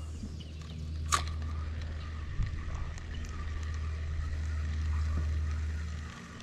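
Steady low motor hum from the boat, with one sharp click about a second in.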